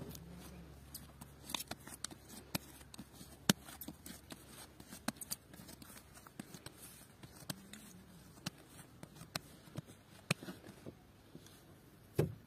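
Hands pulling and rounding soft, sticky risen bread dough: quiet tearing and patting with many small scattered clicks, and a louder knock near the end.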